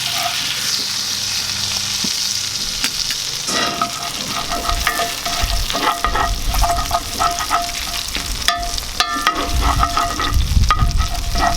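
Butter and olive oil sizzling and frying in a hot cast iron skillet, with stirring noise.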